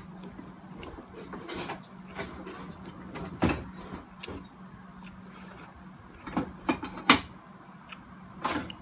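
Hand-eating of a cooked mud crab: scattered cracks and clicks as the shell is picked apart and the meat chewed, loudest about three and a half seconds in and again around seven seconds, over a faint steady hum.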